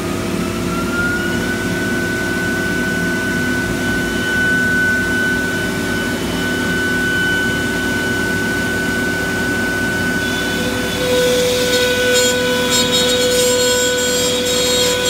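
Techno HD CNC router spindle spinning up with a rising whine that levels off about a second and a half in, over the steady hum of the vacuum hold-down pump. From about ten seconds in the router bit starts cutting the plywood sheet, adding a rougher, crackly high noise and a second steady tone.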